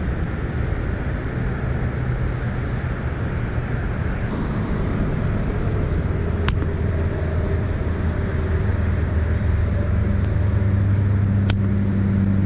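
Steady low hum of a motor vehicle's engine running, growing louder through the second half, with two sharp clicks.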